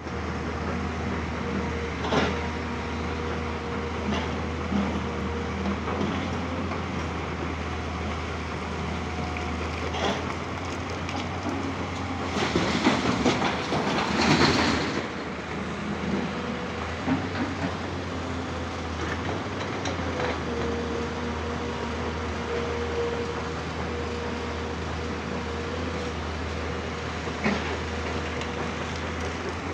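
Tata Hitachi 200 excavator's diesel engine running steadily under a low hum and a fainter higher tone, with a sharp knock of rock now and then. About halfway through a louder clattering rush lasts a couple of seconds as a bucket load of rock goes into the tipper truck.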